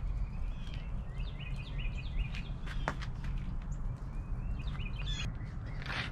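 Small birds chirping over and over in short quick notes, with sharp pops and crackles from a wood fire burning in a metal fire pit, over a steady low rumble.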